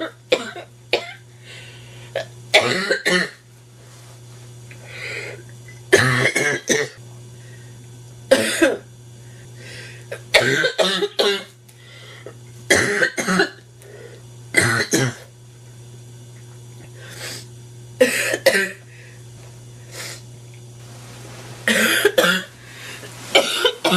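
A woman's harsh, barking cough from a nasty head cold, coming in repeated fits of several coughs each, every few seconds.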